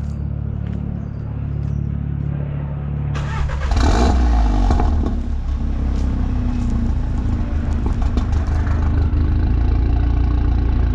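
A stage 2 VW Golf Mk7 R's 2.0-litre turbocharged four-cylinder is started through a freshly fitted non-resonated, valved rear exhaust box. A steady low hum runs for about three seconds, then the engine catches with a loud flare of revs and settles to a steady idle, with no rattle.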